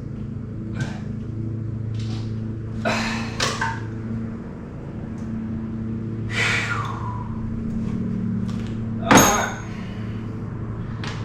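Metal tools and engine parts knocking and clanking as a part is worked loose, a few separate knocks with the loudest about nine seconds in, over a steady low hum.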